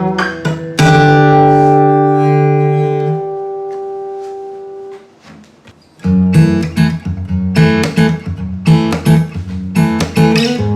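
Hans Bygone DR steel-string acoustic guitar with an Adirondack spruce top, Indian rosewood back and sides and phosphor bronze strings. It is played, then a chord is struck about a second in and left to ring out and fade for several seconds. After a short pause, rhythmic strummed and picked playing resumes.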